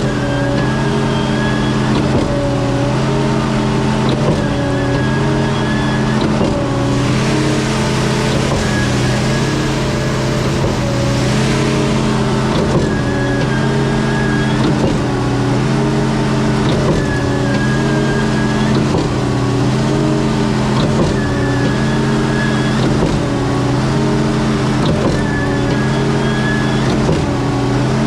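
The 7.3 L Ford Godzilla gasoline V8 of a Reed B50G concrete pump running hard under load while the pump strokes, its tone dipping and shifting in a cycle that repeats roughly every two seconds, about 26 strokes a minute. Two short rushing noises come about seven and eleven seconds in.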